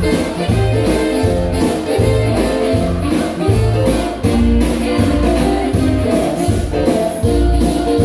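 Dance music with a bass line moving in a steady beat under sustained melody notes.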